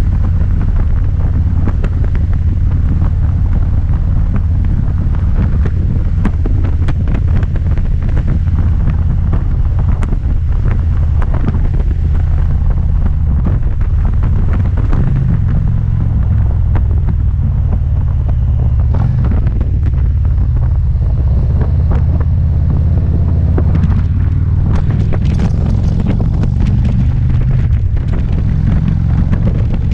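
Touring motorcycle's engine and exhaust running steadily at cruising speed, a loud low rumble whose pitch rises a little about halfway through. Wind buffets the microphone throughout with a constant crackling rush.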